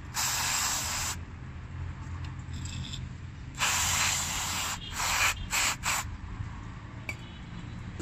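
Aerosol electrical contact cleaner hissing from its straw onto the metal contacts of a transmission range switch. It comes in bursts: about a second at the start, a longer spray in the middle, then three quick short squirts.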